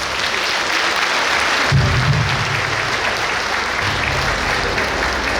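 Audience applauding steadily, with music playing under the clapping from about two seconds in.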